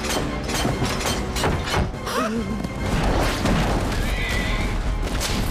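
Film soundtrack of a horse whinnying over orchestral action music, with a run of clattering knocks and impacts.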